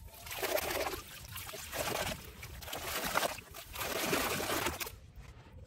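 Shallow muddy water splashing and sloshing in about four surges.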